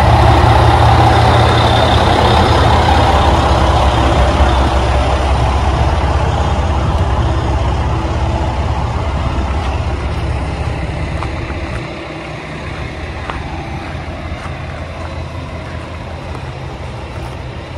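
Diesel railcar engine running with a steady low drone that slowly fades, dropping off markedly about twelve seconds in.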